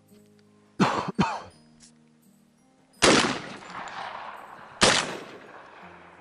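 Shotgun fire: two sharp bangs close together about a second in, then two more shots about three and five seconds in, each followed by a long fading echo.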